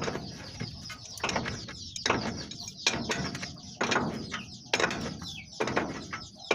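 Ratchet wrench being worked in repeated strokes, about one a second, tightening a bolt.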